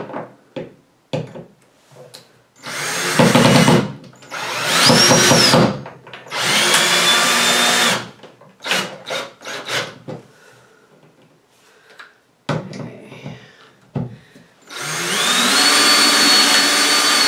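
Cordless drill driving screws through a metal shelf bracket into wall anchors, in four runs: three short ones in the first half, the second rising in pitch as it spins up, and a longer steady run near the end. Short clicks and taps of handling come between the runs.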